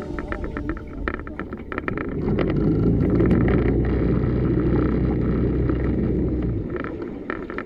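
Jon boat's motor running with a steady low hum, swelling in about two seconds in and stopping shortly before the end.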